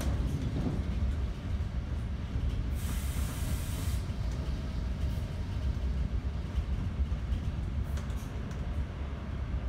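Inside a moving Bombardier Multilevel passenger railcar: the steady low rumble of the train running on the rails. About three seconds in there is a short burst of hiss lasting about a second, and a faint click comes near the end.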